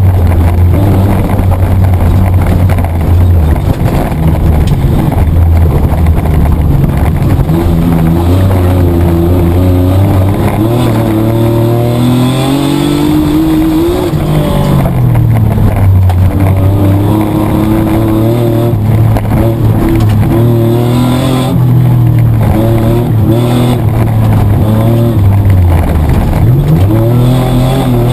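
Mitsubishi Triton 4WD's petrol engine heard from inside the cabin under hard racing, revving up and down, its pitch climbing and then dropping sharply several times as gears are changed.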